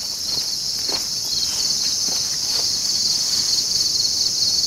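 Chorus of insects trilling, a steady high-pitched, finely pulsing drone that does not let up, with a few faint taps.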